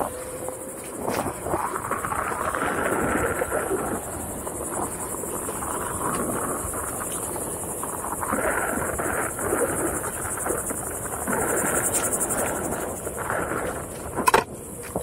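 Onewheel electric board rolling fast over a sandy dirt trail, its tyre and motor giving an uneven noise that swells and fades, with a sharp knock near the end. A steady high insect buzz sounds underneath.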